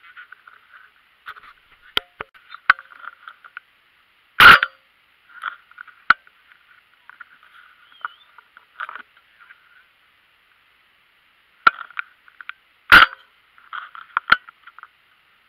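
Two shotgun shots about eight and a half seconds apart, very loud and abrupt as heard by a camera mounted on the gun itself. Smaller sharp clicks and a patchy chatter come between them.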